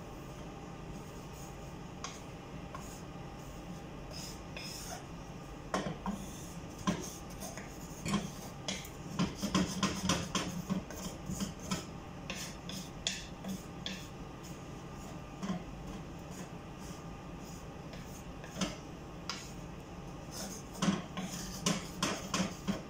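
Wooden spatula scraping and knocking against a metal frying pan as dry flour is stirred and browned, in irregular strokes that get busier about six seconds in.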